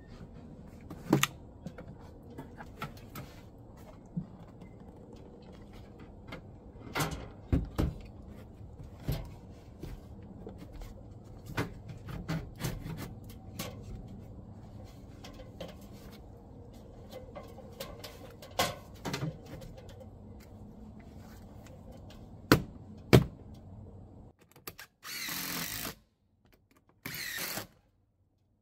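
Scattered knocks and bumps of a plywood box being handled and pushed into a wall opening from an aluminium ladder, over a steady outdoor background. Near the end come two short runs of a cordless drill, about a second each.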